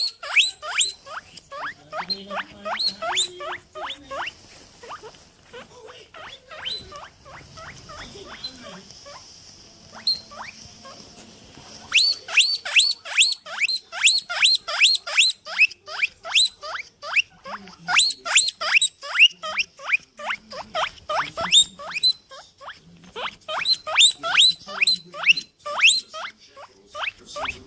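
A small animal squeaking over and over, short high-pitched squeaks about three a second, in loud bouts with a quieter stretch in the middle.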